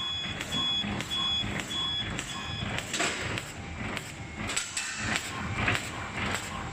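Hot-knife bag-making machine running, with a steady rhythmic clatter as it cycles. Through the first half a series of five short high beeps sounds, evenly spaced about two-thirds of a second apart.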